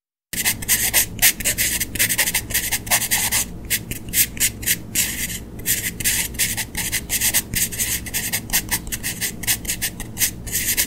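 Pencil lead scratching across paper in a quick, uneven run of short strokes, as in handwriting, starting a moment in.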